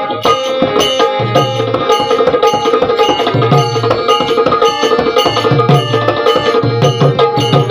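Instrumental interlude of a Marathi devotional song: tabla playing a fast, steady rhythm with deep bass-drum strokes, under a melody instrument holding sustained notes.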